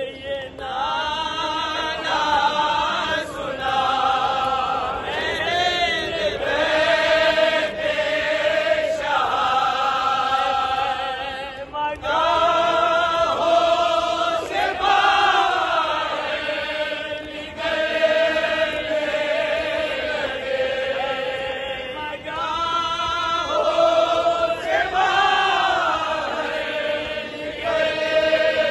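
Many men's voices chanting a devotional recitation together, in long wavering melodic phrases with brief pauses between lines.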